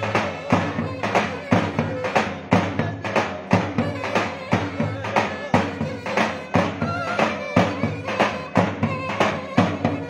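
Mehter-style Turkish folk band music: a shrill reed pipe, typically the zurna, plays a wavering melody over a steady drum beat of about two strokes a second.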